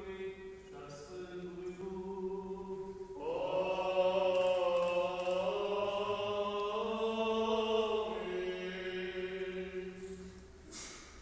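Eastern Orthodox liturgical chant: voices sing long held notes over a steady low drone note. The singing swells about three seconds in as the melody rises, then fades away near the end.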